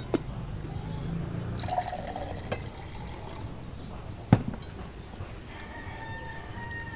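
Eating sounds: a few sharp clicks and knocks of tableware, the loudest a little after four seconds in. A rooster crows faintly near the end.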